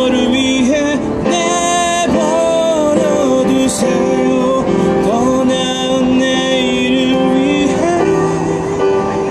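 A song: a sung melody with long held notes over instrumental backing.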